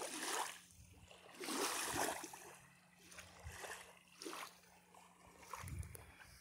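Choppy lake water lapping and washing against a muddy shore in soft swells, the strongest at the start and about two seconds in.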